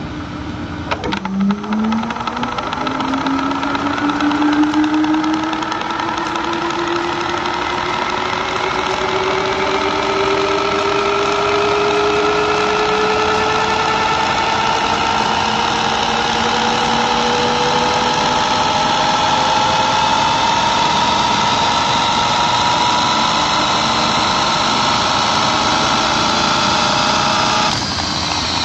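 Clausing-Colchester 15x50 lathe headstock, with its motor, gears and 10-inch chuck, spinning up from standstill in high gear on a VFD. The whine rises slowly and steadily in pitch for over twenty seconds towards 2000 rpm, a slow ramp because the drive's acceleration is limited to 25 amps. Near the end the sound drops suddenly in level as the spindle begins to slow.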